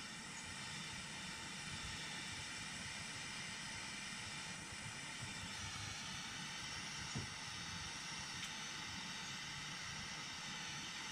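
Butane soldering iron with a hot-air tip hissing steadily as it shrinks heat-seal wire connectors, with one faint tick about seven seconds in.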